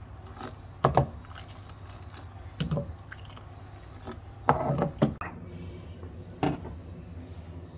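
Black coffee boiling in an aluminium pot while a ladle pours it back in a thick stream, liquid splashing into liquid. A few sharp knocks of the metal ladle against the pot come through over a steady low hum.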